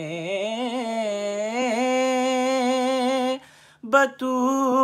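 A man singing an Urdu devotional kalam solo, holding long notes with wavering ornaments. His voice breaks off briefly about three and a half seconds in, then he goes on singing.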